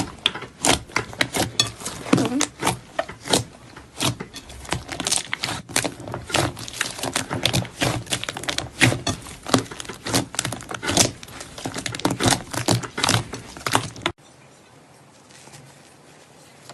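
Slime being squeezed and worked by hand, making a quick run of sticky clicks, pops and crackles. It stops abruptly about fourteen seconds in, leaving only faint room hiss.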